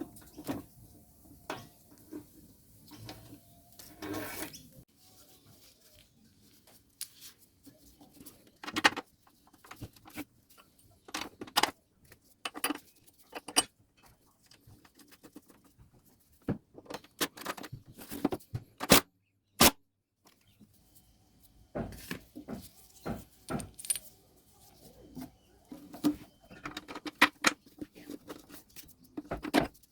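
Irregular clicks, clinks and knocks of small mower parts and hand tools being handled and fitted, a few of them sharp and loud.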